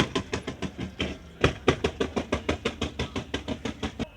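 Exhaust of a 1973 Buick Riviera's 455 cu in V8, running with an even chuffing beat of about six to seven puffs a second, which stops just before the end.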